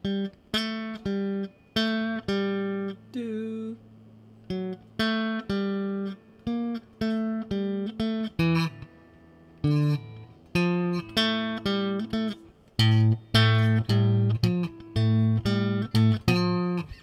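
Electric guitar played clean: short picked notes and chords in a bouncy rhythm, each cut off with a brief gap before the next, with deeper low notes joining about three-quarters of the way through.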